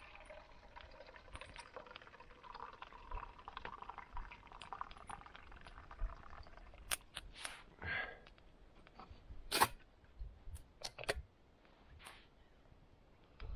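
Liquid pouring from a thermos flask into a small metal mug for about six seconds, followed by a few scattered sharp clicks and knocks.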